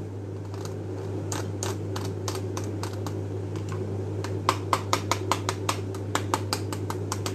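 Light clicks of a knitting needle tapping across a sound-collage board of metal can tabs, sequins and beads. The taps are scattered at first, then about halfway through they turn into a quicker run of about five clicks a second. A steady low hum runs underneath.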